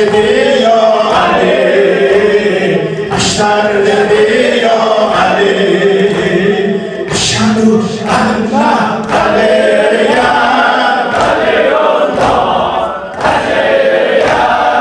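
A group of voices chanting a Shia mourning lament (noha) together, without instruments.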